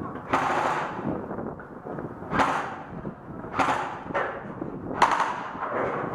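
Airsoft guns firing: about five sudden bursts, the first lasting about half a second, the rest shorter and spread over the next few seconds.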